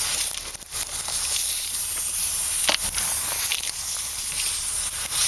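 Compressed air hissing steadily out of a big truck tyre that still holds about 80 to 90 psi, while the object stuck in the puncture is twisted out. The hiss dips briefly about half a second in, and there is a sharp click near the three-second mark.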